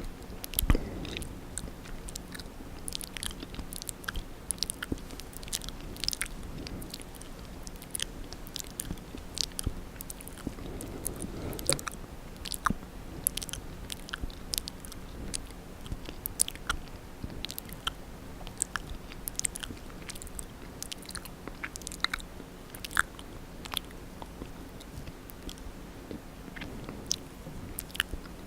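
Close-miked wet mouth sounds for ASMR: irregular lip smacks, tongue clicks and licking, sharp wet clicks coming several times a second.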